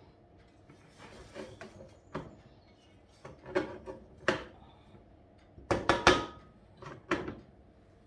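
Kitchen clatter: a series of separate knocks and bangs, with the loudest cluster of several close together about six seconds in.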